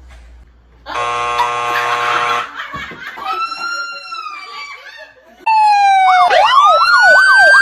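Comedy sound effects edited into the track. About a second in comes a short buzzer-like tone, then a gliding whistle-like tone. From about five and a half seconds a loud siren effect wails, then switches to a fast up-and-down yelp, about two to three sweeps a second, and cuts off abruptly.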